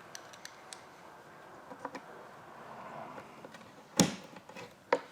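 Small clicks and light taps from handling flat-pack desk parts and a screwdriver, then two sharp knocks about a second apart near the end.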